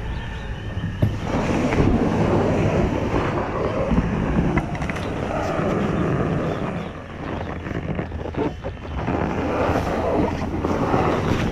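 Snowmobile engine running as it rides on through the snow, a steady low hum under wind rushing over the microphone. The noise drops briefly twice past the middle.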